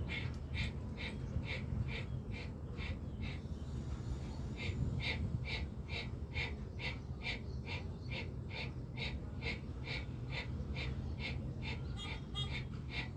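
Bhastrika pranayama (bellows breath): a person breathing forcefully and rapidly through the nose in an even rhythm of about two to three strokes a second, with the belly pumping each breath. The strokes fade briefly about three to four seconds in, then pick up again.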